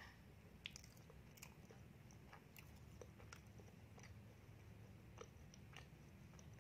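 Faint chewing of a peanut-topped donut close to a clip-on microphone: soft, irregular mouth clicks and small crunches.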